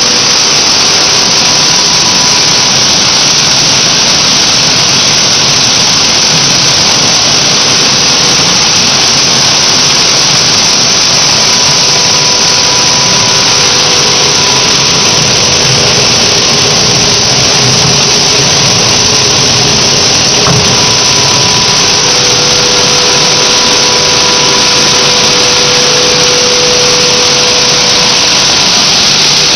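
PET bottle washing line running: a loud, steady mix of machine noise and water pouring into a stainless steel washing trough, with a faint whine coming and going.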